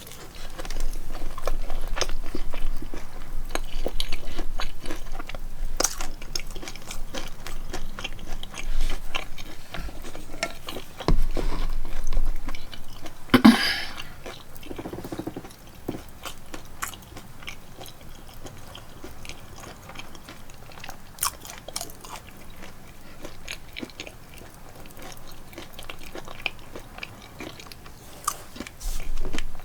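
A person eating corn dogs and french fries: biting and chewing with crisp crunches, with one louder bite about midway.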